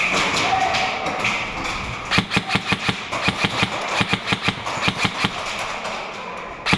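Airsoft guns firing a rapid string of shots, about six or seven a second, starting about two seconds in and stopping after about three seconds, with one more shot near the end.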